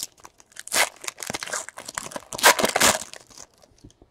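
Foil wrapper of a trading-card pack being torn open and crinkled, in several quick rips, the loudest about two and a half seconds in.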